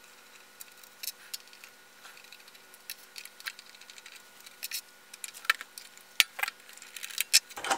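Small metallic clicks and scrapes of a screwdriver turning out screws on a Bolex M8 8mm film projector's metal housing, scattered and coming closer together near the end.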